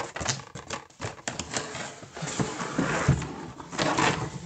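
Cardboard packaging being opened and handled: a quick run of small clicks and knocks, then a longer rustling, scraping slide as the inner hard-shell case is drawn out, with a dull thump about three seconds in.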